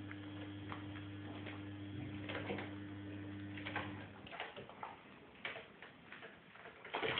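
Scattered light ticks and scrapes of a kitten's claws gripping the carpeted and sisal-wrapped posts of a cat tree as it climbs, with a louder scuffle near the end. A steady low hum runs underneath and stops about four seconds in.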